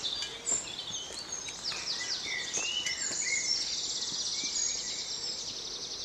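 Several songbirds singing together: a mix of short chirps and whistled glides, with a fast trill about three and a half seconds in.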